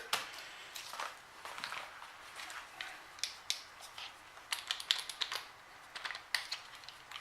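Irregular light clicks, taps and rustles of hands handling a sanding pad and sanding paper on an oscillating multi-tool's head; the tool's motor is not running.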